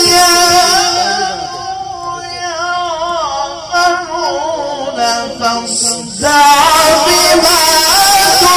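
A man reciting the Quran in the melodic tajweed style, one voice holding long ornamented notes that waver in pitch. The recitation drops quieter through the middle and comes back louder and higher about six seconds in.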